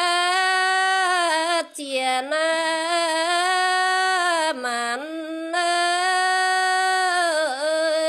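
A Red Dao folk song sung solo, in long held notes, each ending in a brief downward slide into the next, about every two to three seconds.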